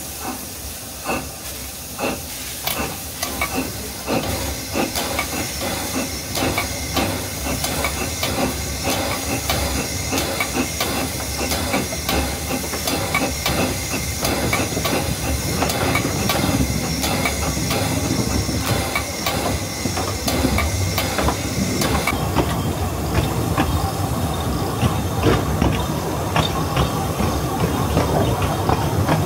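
Narrow-gauge steam locomotive working along the line: regular exhaust chuffs over a steady hiss of steam. About 22 seconds in this gives way to carriage wheels rumbling and clattering over the rail joints.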